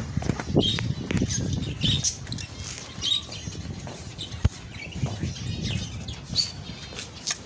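Caged finches chirping: many short, high calls, scattered through the flock. A low rumble sits under the first couple of seconds, and there is one sharp click about four and a half seconds in.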